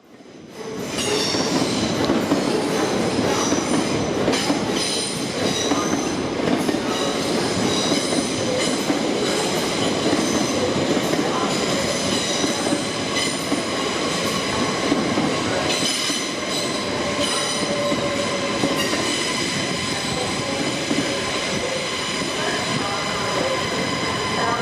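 Train moving through a station, its wheels squealing in several steady high tones over the rumble and clatter of the wheels on the rails. The sound fades in over the first second, then holds steady.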